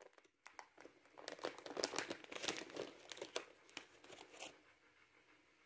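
Plastic fish-snack treat packet crinkling and crackling as it is handled and opened, in a dense run of crackles that fades out about four and a half seconds in.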